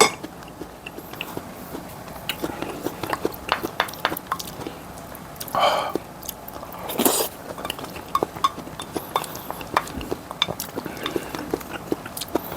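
Close-miked eating: chewing and biting with many small mouth clicks and light clinks of utensils against dishes, and two louder noisy bursts a little past halfway.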